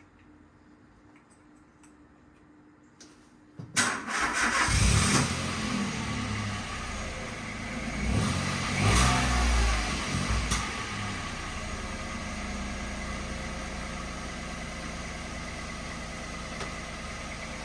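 Peugeot 107 engine cranked and catching about four seconds in, revving up twice, then settling into a steady idle.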